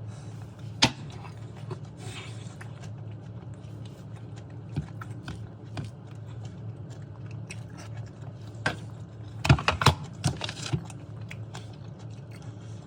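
Sharp clicks and knocks of kitchen utensils on a board or plate while the roast is handled and cut: a few scattered ones, then a quick cluster of louder clicks about nine to ten seconds in, over a steady low hum.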